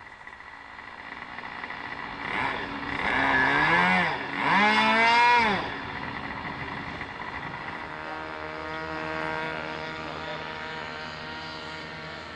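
Model helicopter engine running, its pitch rising and falling twice in quick succession as it revs, loudest in those swells, then settling to a steady note.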